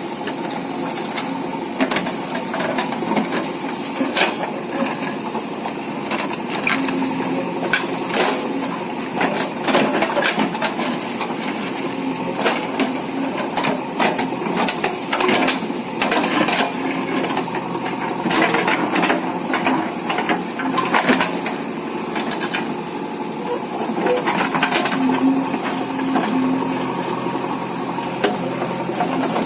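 JCB earthmover's diesel engine running steadily at work, with irregular clanks and knocks from the machine and the material it is handling.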